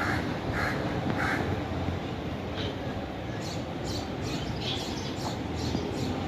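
Birds calling outdoors: three short calls about half a second apart, then a run of quicker, higher-pitched chirps from about three and a half seconds in, over a steady low background noise.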